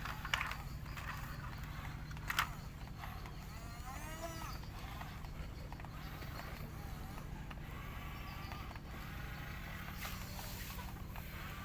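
Heavy diesel machinery running with a steady low rumble, with two sharp knocks, one about half a second in and one about two and a half seconds in.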